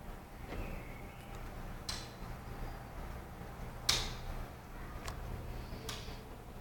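Four sharp clicks, the loudest a little before the four-second mark, over a steady low hum.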